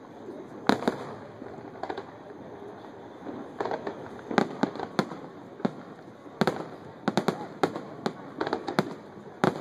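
Aerial fireworks shells bursting in an irregular series of sharp bangs, a few at first and coming thicker and in quick clusters from about three and a half seconds in.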